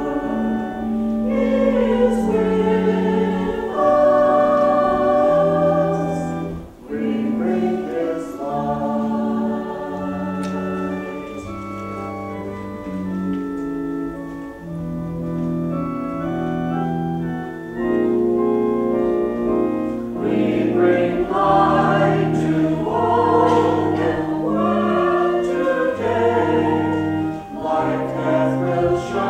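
Mixed church choir of men and women singing in harmony, holding long notes, with one brief break for breath about seven seconds in.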